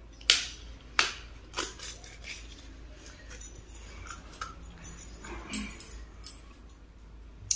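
Bangles clicking and clinking against each other as they are handled and taken out of their wrapper: three sharp clicks in the first two seconds, then lighter scattered ticks.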